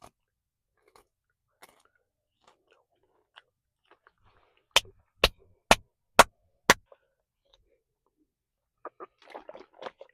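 Person chewing Tom Yum-flavoured crickets close to the microphone: faint clicks of chewing, then five loud, sharp crunches about two a second midway, and soft crackling chewing near the end.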